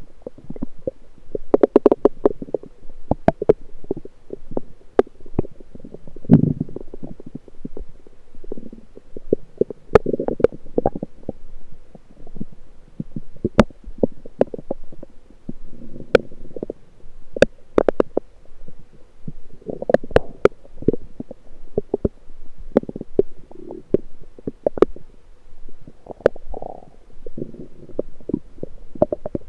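Lower intestines gurgling and rumbling, heard close up through an electronic stethoscope: irregular gurgles come and go, with many sharp clicks and pops scattered among them.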